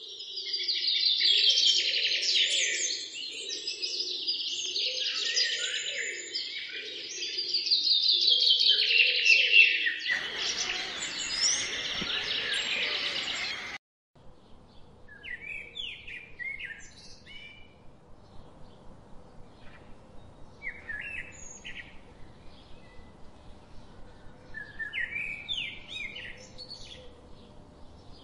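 Many small birds chirping and twittering densely, with a lower wavering sound beneath. About halfway through it cuts off abruptly, and then fewer, quieter chirps come at intervals over a faint background hiss.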